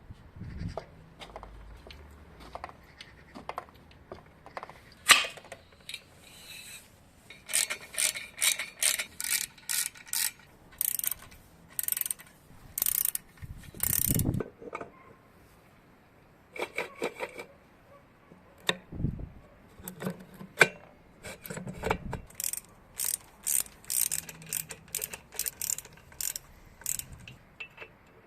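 Hand-tool work on metal: runs of short, sharp mechanical clicking strokes, about two to three a second, with a few duller knocks between the runs.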